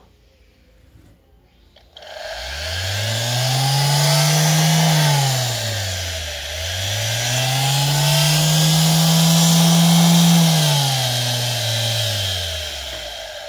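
Brushless DC high-speed router motor on a homemade speed controller, spinning up about two seconds in, winding down almost to a stop, then spinning up again, holding speed and winding down near the end: a whine that rises, holds and falls in pitch over a loud rushing hiss.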